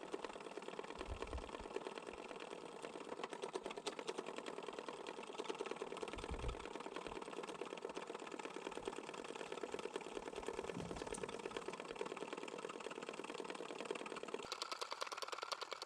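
Small motorised cat-patting machine running with a rapid, even tapping and a steady hum; its tone changes near the end.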